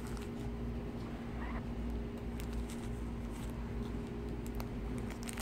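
Faint handling sounds of velvet drawstring pouches and a plastic coin sleeve: scattered small rustles and light ticks over a steady low background hum.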